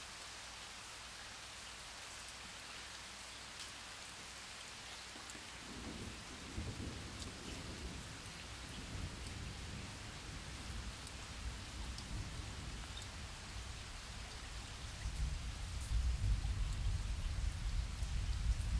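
Steady rain falling, with scattered drop ticks. A low thunder rumble comes in about a third of the way through and swells, loudest near the end.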